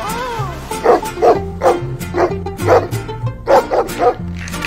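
A dog barking about nine times in quick succession over music with a steady bass line, after a short rising-and-falling whine at the start.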